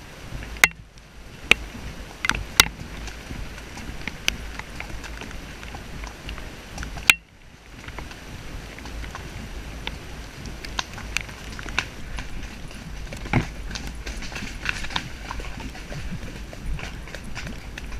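A horse moving along a wet, muddy track: hoofbeats with scattered sharp clicks over steady wind and movement noise on a helmet-mounted camera.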